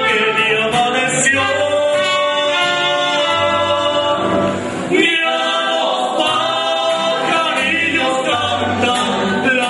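Mariachi band performing: a man singing into a microphone over strummed guitars and low guitarrón bass notes. A short break comes about halfway through, then the next phrase starts.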